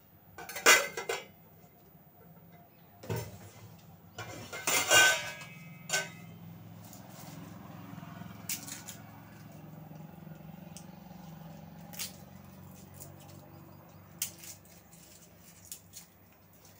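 A wire whisk clattering against a steel bowl of besan-and-curd batter, with steel dishes clinking, in two short loud bursts within the first five seconds. After that comes a low steady hum with faint scattered clicks as garlic cloves are peeled.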